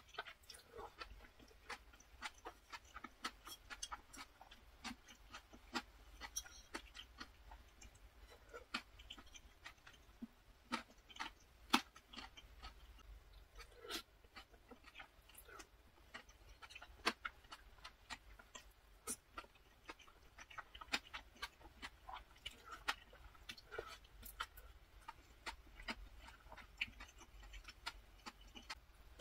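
Close-miked eating: a person chewing and slurping chewy spicy noodles with sea snails (golbaengi jjolmyeon), with frequent irregular wet mouth clicks.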